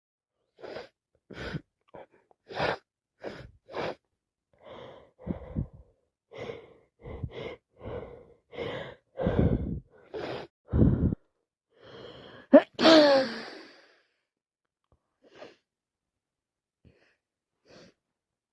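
A woman with a head cold taking a run of short, catching breaths for about ten seconds. She then lets out one loud, voiced sneeze, followed by a few faint breaths.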